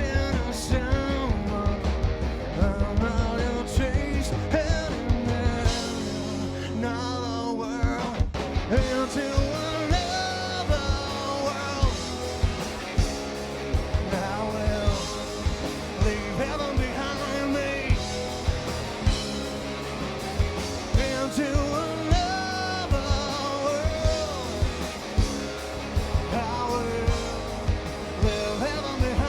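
A rock band playing live: a steady drum beat and bass under electric guitar and a melodic lead line, with a momentary break in the sound about eight seconds in.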